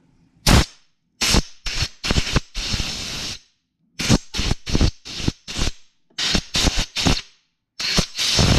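Compressed-air blow gun fired in a rapid string of short, sharp blasts, a couple held for about a second, blowing out a freshly heli-coiled bolt hole in a snowmobile engine to clear something loose from the new threads.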